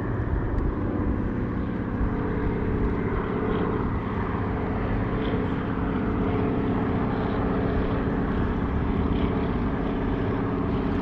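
Seaplane's propeller engine running overhead, a steady hum made of several low, level tones that holds without a break.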